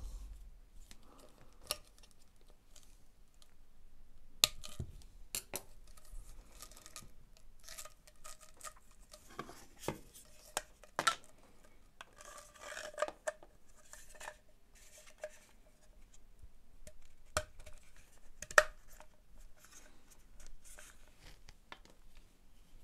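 Hard plastic parts and a corrugated rubber hose of a Makita DX01 dust extraction attachment being handled and fitted together on a steel bench: scattered clicks and knocks with short bouts of rubbing, the sharpest click about two-thirds of the way in.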